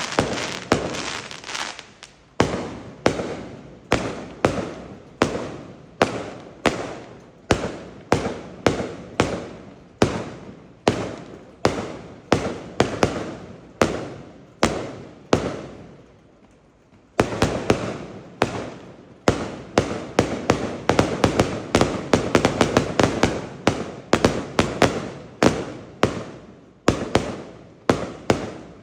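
Fireworks going off in a rapid series of sharp bangs, each trailing off, about two a second; after a brief lull about halfway through, the bangs come faster and denser.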